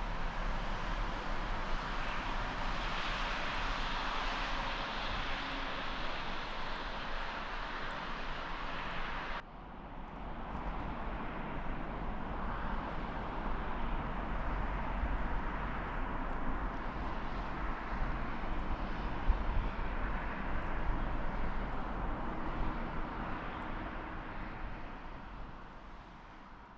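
Steady rushing outdoor noise with a deep rumble, cut off abruptly about nine seconds in and replaced by a duller version of the same noise, which fades out at the end.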